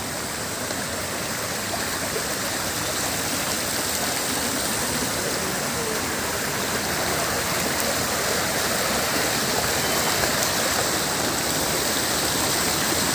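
Monsoon stream water rushing over rocks, a steady dense hiss that grows slightly louder.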